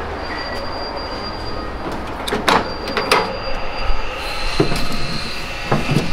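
Steady noisy garage background with a faint high whine coming and going, and several sharp knocks and clatters in the second half, as of someone moving around and getting into a pickup truck's cab.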